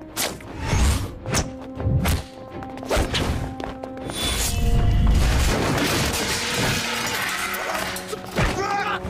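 Fight sound effects over a music score: a quick series of punch and body-hit impacts, then a long crash with shattering about four to six seconds in, and a few more hits near the end.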